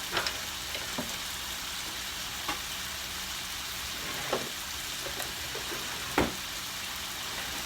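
Chicken pieces sizzling steadily in a frying pan, with a few sharp clicks and scrapes of a utensil stirring them, the loudest about six seconds in.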